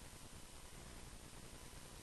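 Near silence: a steady low hiss of recording noise with a faint thin hum.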